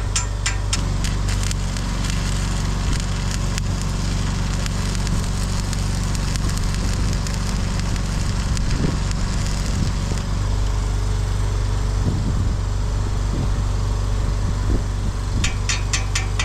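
Stick-welding arc crackling and sizzling for about ten seconds, then dying down, over the steady hum of an engine running underneath.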